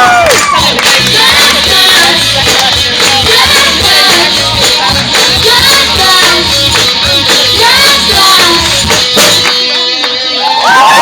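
A live rock band plays with drums and tambourine while voices sing the tune. About nine and a half seconds in, the drums stop and a single held note carries the song to its end.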